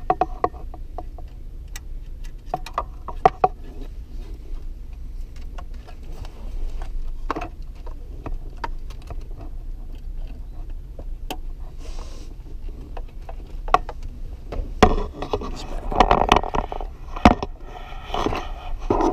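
Plastic wiring-harness connectors clicking and wires rustling as they are handled and plugged together, in scattered sharp clicks. Near the end comes a louder stretch of rustling and knocking as the car stereo head unit and its wire bundle are picked up.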